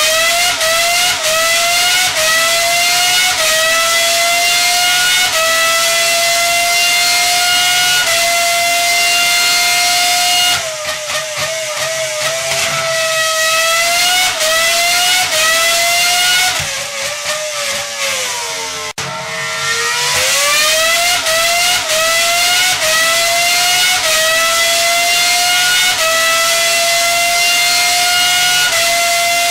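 High-revving engine accelerating up through the gears: a loud, high-pitched note that climbs, drops slightly at each shift and climbs again. Partway through it eases off and wavers lower for several seconds, then winds up through the gears once more.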